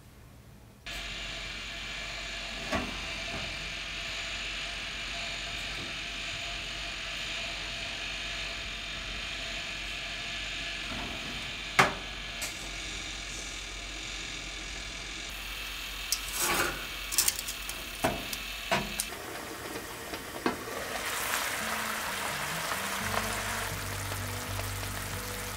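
A steady background hum, broken by a sharp click about twelve seconds in and a run of clicks and clunks a few seconds later as a Sanyo toaster oven's door is opened and shut. Toward the end, food sizzles in a frying pan: an acqua pazza of clams and fish simmering.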